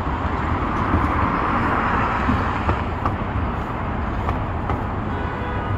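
City street traffic noise over a steady low rumble, with a vehicle passing and swelling about one to two seconds in. A faint high whine comes in near the end.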